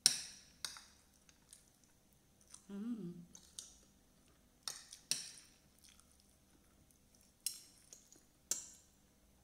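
Spoon and fork clinking and scraping on a plate of rice in scattered, irregular strokes, with chewing between them during a mukbang. A brief hum of the voice comes about three seconds in.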